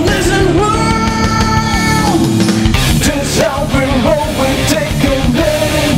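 Rock band playing: electric guitar, bass guitar and drums. A held note rings over the first two seconds, then the full band, drums included, comes back in hard just under three seconds in.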